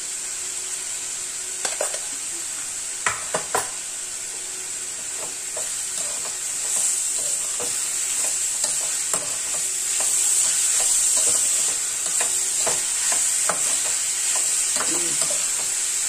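Grated turnip and peas sizzling in oil in a metal kadhai while a slotted metal spatula stirs them, scraping and clicking against the pan. There are a few sharp knocks in the first four seconds, and the stirring and sizzle grow louder from about six seconds in.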